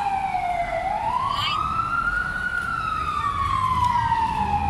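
A siren wailing in a slow cycle: its pitch falls, climbs back up about a second in, holds briefly, then falls slowly again.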